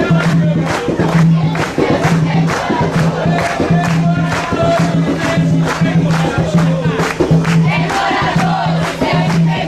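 A group of voices singing an Umbanda ponto (ritual chant) together, over steady drum strokes about three a second.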